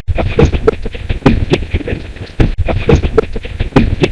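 Loud white noise from a ghost-hunting white-noise session, broken by rapid, irregular clicks and short snatches of pitched sound.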